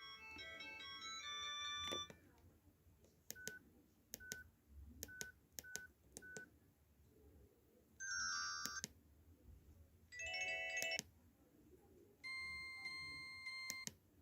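Imitation Nokia C1-01 mobile phone ringtones and alert tones: a beeping electronic ringtone melody ends about two seconds in. It is followed by five single short beeps, each with a click, then three separate short electronic tones of a second or so each.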